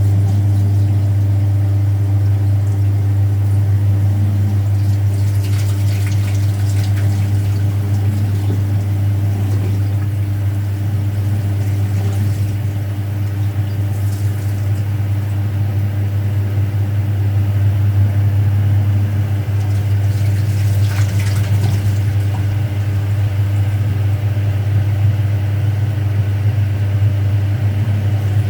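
Speed Queen top-loading washing machine running with a steady low motor hum, with a few short rushes of noise over it, about 6, 13 and 21 seconds in.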